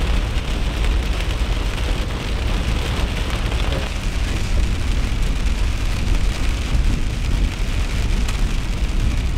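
Steady rain pattering on a truck's windshield and roof, heard from inside the cab, over the deep low rumble of the truck rolling along a dirt road.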